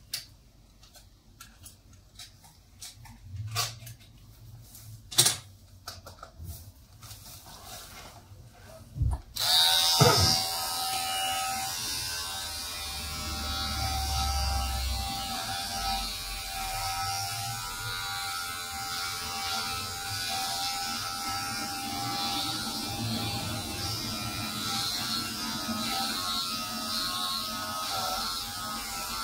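A few scattered knocks and handling clicks, then about a third of the way in a corded electric shaver switches on and runs with a steady buzz as it shaves a man's head.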